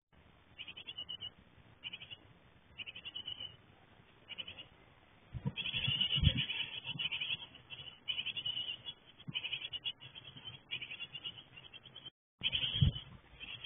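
Japanese tit nestlings begging in a wooden nest box: bouts of rapid, high-pitched chirping. About five and a half seconds in, an adult arrives with food and the calls swell into a loud chorus, with a few low thumps of the adult landing in the box. A second thump comes near the end.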